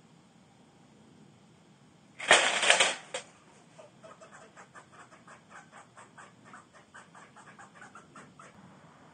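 A Havahart two-door wire cage trap springing: its doors slam shut with a loud metal clatter lasting about a second, beginning two seconds in. Then comes a run of quick, light clicks and rattles of the wire mesh, several a second, as the trapped squirrel moves about inside.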